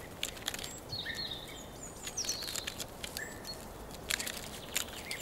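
Red squirrel gnawing and tearing the scales off a spruce cone: a series of short, crisp clicks and crackles in clusters. Small birds chirp in the background.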